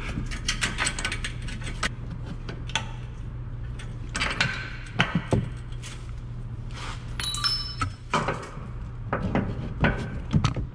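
Metal suspension parts and hand tools being handled: irregular clinks and clanks of loose bolts, washers and the control arm, with a short metallic ring about seven seconds in. A steady low hum runs underneath.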